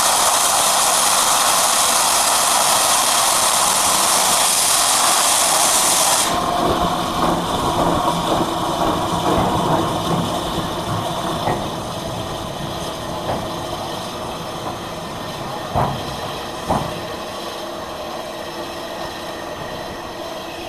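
Steam locomotive hissing loudly with escaping steam for about six seconds until the steam cuts off suddenly. It then works slowly in reverse off the turntable, with uneven exhaust beats and a few sharp clanks.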